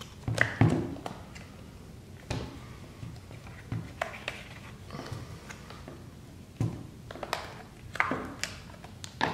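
Silicone skin of a Gumdrop Drop Tech iPad case being peeled off around the iPad's edges: irregular soft clicks, taps and brief rubbing as the case is handled.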